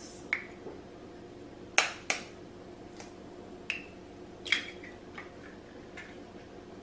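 Eggs being cracked by hand into a plastic container: a series of short, sharp clicks and taps of eggshell breaking, the loudest about two seconds in and again about four and a half seconds in.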